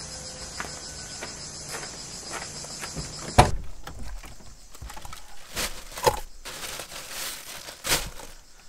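Insects shrilling in a steady, pulsing high chorus that cuts off abruptly a little over three seconds in. A sharp thump follows, then scattered knocks and rustles as a black plastic bag and its contents are handled on a van seat.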